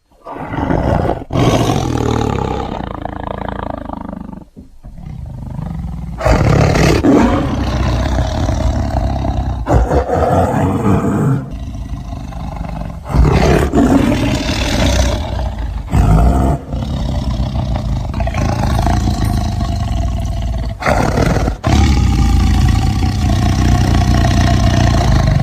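Tiger roaring and growling in a long series of loud, deep calls, with several abrupt breaks where one call gives way to the next.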